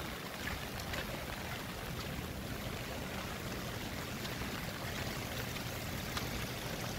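Steady rain falling on a wet road and foliage, an even wash of noise with a few faint spattering drops.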